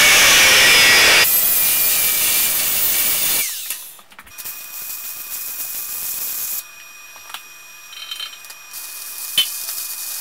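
Electric angle grinder running hard against a steel plate clamped in a vise, loud for about three and a half seconds, its pitch dipping and recovering as the disc bites. Then much quieter shop sounds with a steady high whine and a sharp click, and a welding hiss near the end.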